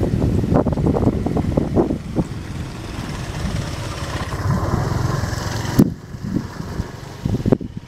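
Passenger train passing at speed: a low rumble from the wheels on the track, with a run of irregular knocks in the first couple of seconds. The sound breaks off abruptly about six seconds in and again near the end.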